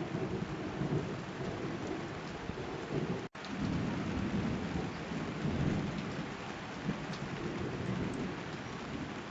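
Typhoon storm on a balcony: a steady rush of rain with a low, gusting rumble that swells and eases. The sound cuts out for an instant about three seconds in.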